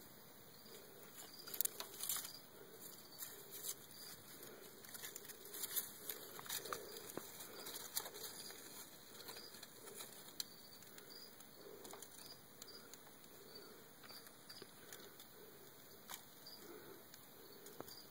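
Faint rustling with scattered light clicks and taps over a low steady hiss; the clicks cluster in the first half.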